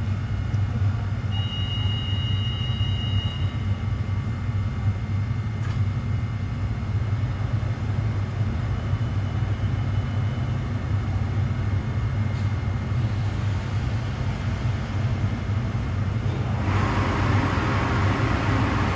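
SEPTA ACS-64 electric locomotive standing at the platform, running with a steady low hum. A brief high tone sounds about two seconds in, and near the end a louder hissing rush comes in over the hum.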